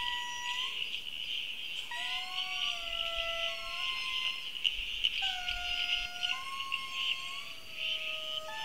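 Indri lemurs singing together: long, held wailing notes, several voices overlapping, each note lasting about a second and some gliding slightly in pitch. A steady high buzz runs behind them.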